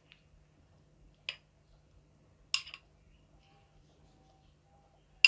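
A kitchen utensil clinking against a dish, three short sharp clinks with a gap of about a second or more between them, as chopped tomatoes are portioned out.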